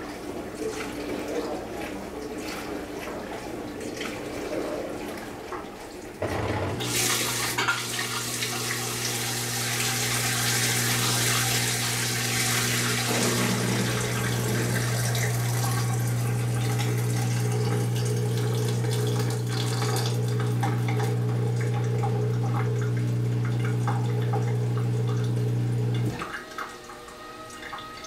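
Compact countertop dishwasher draining: its drain pump switches on about six seconds in with a steady low hum, and water rushes out of the drain hose and splashes into a stainless steel sink. Both cut off suddenly near the end. Before the pump starts, the machine runs more quietly.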